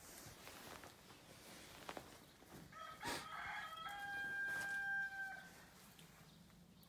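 A rooster crowing once, starting about two and a half seconds in and ending in a long held note.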